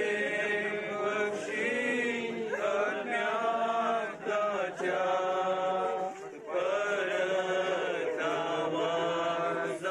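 Voices singing a slow hymn in long held notes, with short pauses for breath between phrases.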